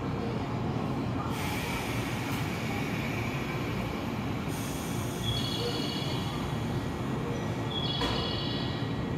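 JNR 117 series electric train standing at the platform with a steady low hum, broken by a loud hiss of air from about one to four and a half seconds in. Short high beeping tones sound twice in the second half.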